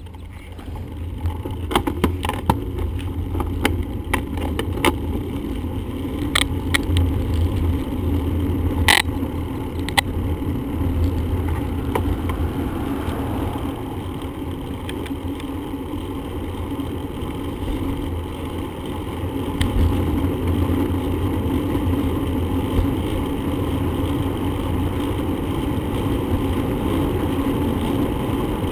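Steady wind rumble on the microphone and road noise from a bicycle being ridden, with a scatter of sharp rattling clicks in roughly the first ten seconds.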